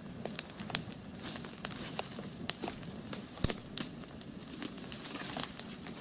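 Fire burning inside a hollow tree trunk, crackling and popping irregularly, with one louder pop about three and a half seconds in.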